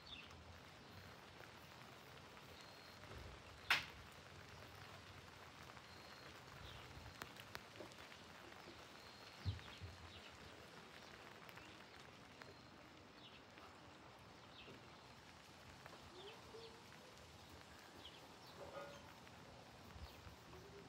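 Quiet outdoor ambience with faint, scattered short bird chirps. A single sharp click about four seconds in and a dull thump near ten seconds stand out as the loudest moments.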